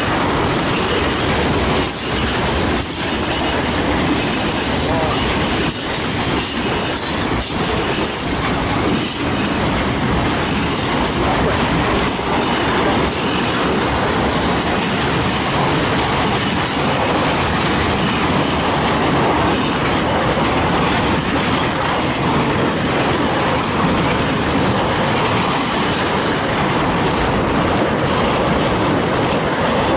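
Long mixed freight train's cars passing close by at speed: a steady, loud rumble of steel wheels on rail, with clicks and clatter as wheels cross rail joints.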